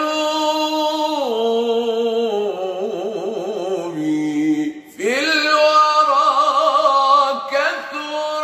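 Solo unaccompanied male voice chanting an Islamic ibtihal, drawing out long melismatic vowels with quick wavering ornaments. One long phrase steps down in pitch, a short breath comes about five seconds in, then a second long held phrase begins.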